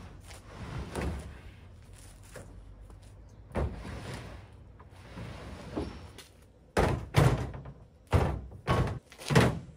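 Wooden timbers and tools being loaded into a pickup truck's bed: a few light knocks, then a run of about five loud thunks in the last three seconds.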